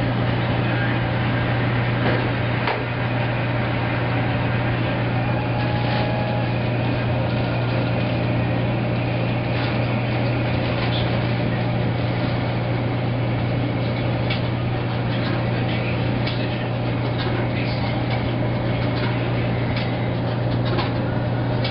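Maytag SoftMount commercial washer running mid-cycle: a steady low motor hum with scattered light clicks and knocks.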